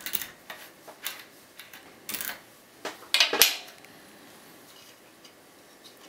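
Metal key sliding into and back out of a five-pin GTV euro-profile lock cylinder, its pins clicking and scraping in a series of short bursts, the loudest a little over three seconds in.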